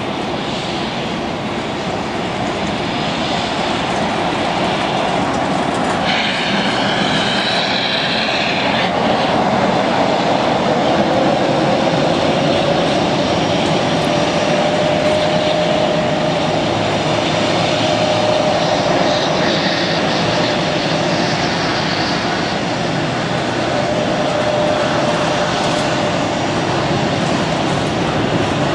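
Airbus A320-211 airliner's CFM56-5A turbofan engines on approach and landing: a continuous jet rush with a steady droning fan tone, growing louder over the first several seconds as the aircraft comes in low. A brief higher-pitched wavering sound rises over it about six seconds in.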